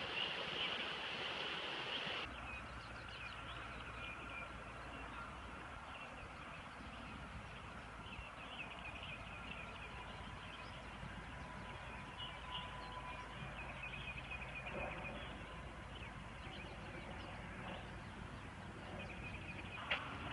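Swollen, flooding creek rushing for the first two seconds; then, after an abrupt change, a steady low outdoor hiss with songbirds chirping throughout, and a single sharp click near the end.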